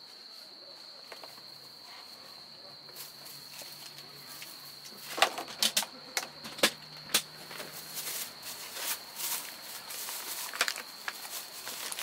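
Crickets chirring in one steady high note, while a plastic-lidded meal-kit tray is opened: a few sharp plastic clicks and snaps about five to seven seconds in, then the crinkle of plastic bags being handled.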